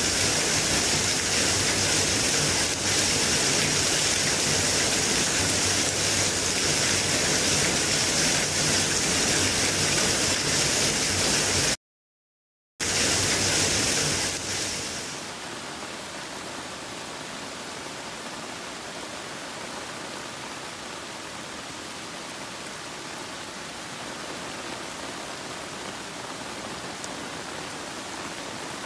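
Heavy rain pouring down on tree leaves, a loud, steady hiss. It cuts out for about a second a little before halfway. Around halfway it gives way to a quieter, duller steady sound of lighter rain falling on large leaves.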